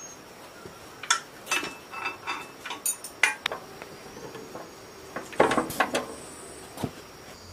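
Steel wrench clinking against the generator head's belt pulley and nut as it is worked on: irregular light metallic clinks and taps, with a quick cluster of them a little past the middle.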